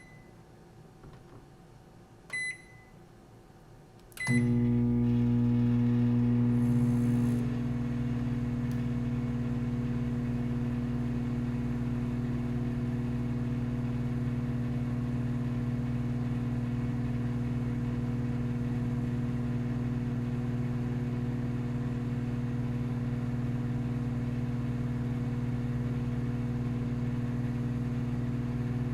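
Microwave oven keypad beeping twice, then about four seconds in the oven starts with a click and runs with a steady hum, a little louder for the first few seconds before settling.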